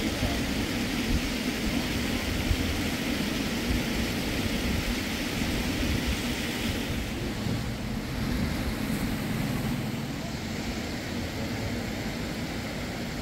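Steady vehicle noise: a low engine rumble with road hiss, the hiss easing a little about seven seconds in.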